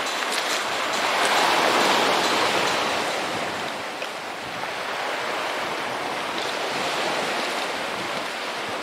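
Sea waves washing onto a pebble shore: a steady rushing noise that swells about a second in, eases off, then builds again.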